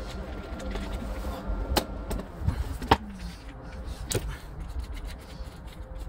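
Three sharp knocks about a second apart as a plastic bus dashboard cover panel is handled, over a steady low vehicle rumble; a steady hum drops in pitch and fades about three seconds in.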